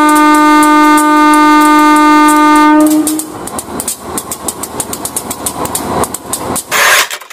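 Horn of a CC201 diesel-electric locomotive giving one long steady blast of about three seconds as the train passes close by. The blast is followed by the clickety-clack of the train's wheels over rail joints, with a short rush of noise near the end.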